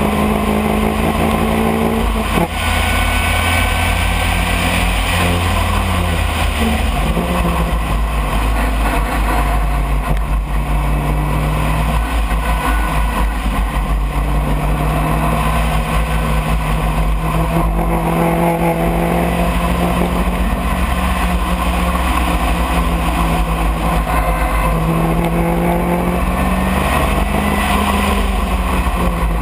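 Onboard sound of an open-cockpit racing car's engine under hard driving, its pitch climbing with the revs and dropping sharply several times at gear changes and lifts for corners, with wind rush over the open cockpit.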